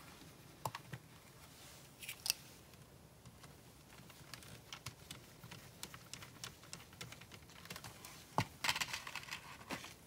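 Faint clicks and scrapes of a precision screwdriver driving a small screw into a plastic model part, with the parts and wiring being handled; a louder, quicker run of clicks near the end.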